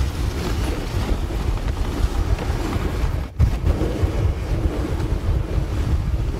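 Wind buffeting the microphone on a dog sled running downhill, with the rumble and hiss of the sled runners over snow. It drops out for an instant just past halfway.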